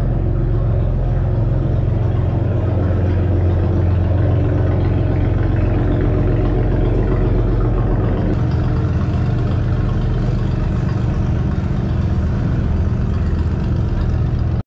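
Inboard engines of classic wooden runabouts running at low speed as they pass close by: a steady, low engine note.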